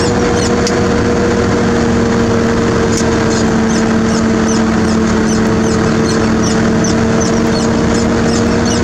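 Heavy diesel machinery running at a steady speed, with a constant hum and a light ticking or clanking repeating about two to three times a second.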